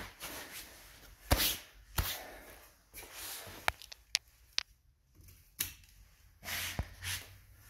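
Close handling noise: several sharp taps and clicks, mixed with brushing and rustling, as a hand and camera move over car batteries.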